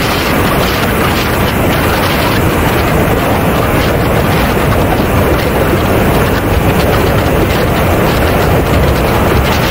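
Loud, steady rush of air over a camera mounted under the belly of a radio-controlled Mibo A-10 model jet in flight, mixed with the jet's engine noise.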